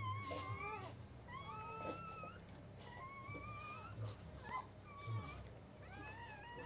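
A newborn Dogue de Bordeaux puppy squealing and crying in short, high, thin whines, about one a second, some sliding up in pitch and some falling. Soft low bumps and shuffles can be heard underneath.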